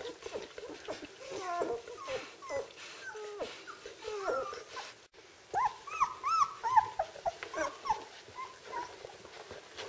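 Twelve-day-old Czechoslovakian wolfdog puppies whimpering and squeaking: many short whines that slide up and down in pitch. About halfway through, the cries grow louder and come as arched, rising-then-falling squeals.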